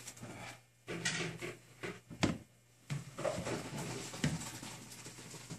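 Pots and utensils clattering at the kitchen sink, with a few sharp knocks and scrapes.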